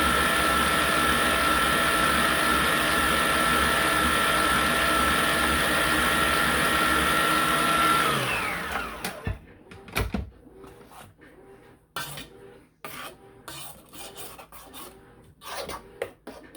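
Electric kitchen mixer running steadily while mixing instant chocolate pudding, then switched off about eight seconds in, its whine falling in pitch as it winds down. After it, a series of scattered knocks and clinks.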